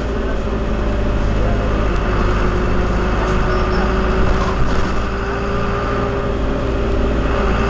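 Engine and road noise heard from inside a moving passenger vehicle's cabin: a steady low rumble with a faint steady whine over it.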